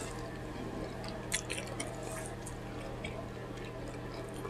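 Faint chewing of pizza with a few small wet mouth clicks, the clearest about a second and a half in, over a steady low hum.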